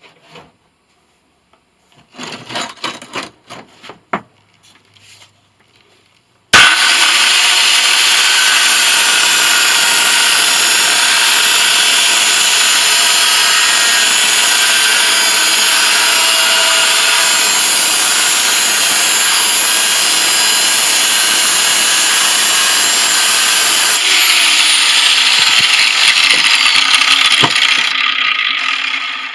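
A few light clicks of handling, then about six seconds in an electric angle grinder starts abruptly and runs steadily with a loud, high, harsh noise. It gets louder and rougher near the end before it winds down.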